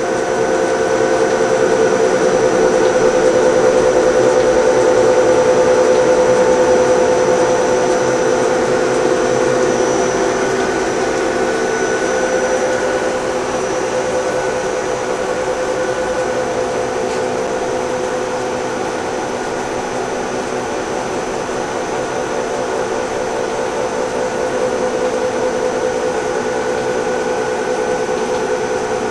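1989 YCM Supermax TC-2 CNC lathe running under power, its 10 HP spindle drive giving a steady whine of several tones with a faint high whistle above. It is a little louder in the first few seconds, then holds level.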